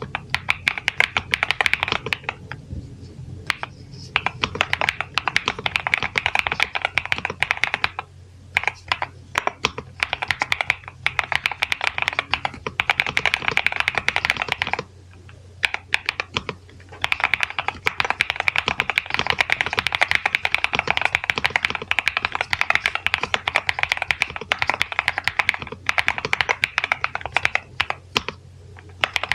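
NuPhy Halo96 V2 mechanical keyboard with Mint switches being typed on quickly: a fast run of key clacks, broken by a few short pauses.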